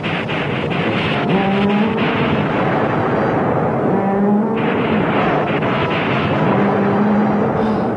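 Studio sound effects of a giant bull-horned monster: a steady heavy rumble with a few crackling hits near the start, and the monster's roar rising and then holding three times, about every two and a half seconds. The tranquilliser rounds that hit it have no effect.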